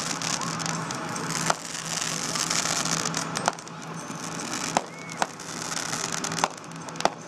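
Fireworks display: a dense hiss and crackle of crackling stars, with about five sharp bangs of shells bursting a second or so apart.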